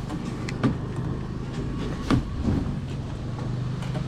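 A steady low engine-like hum with a few sharp knocks over it, the loudest about two seconds in.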